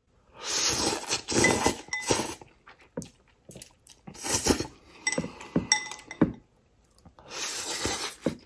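A person slurping instant ramen noodles, three long slurps of a second or two each, with chewing and chopsticks clinking against a glass bowl in between.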